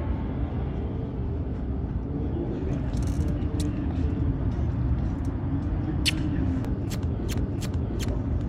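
Steady low rumble of outdoor traffic, with a run of sharp little clicks in the second half, about three a second near the end.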